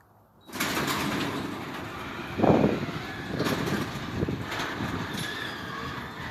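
Garage door closing under its electric opener: a steady rumbling rattle of the door moving down its tracks, starting about half a second in, with a louder swell about two and a half seconds in.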